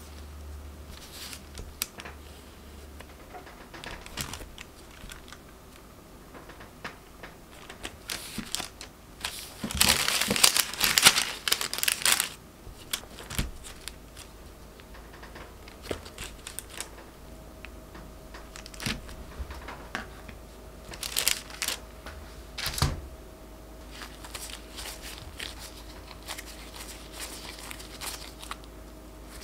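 Dough scraper pressed down through chilled scone dough onto parchment paper: scattered sharp taps and crinkling of the paper, with a louder stretch of crinkling and rustling about ten seconds in.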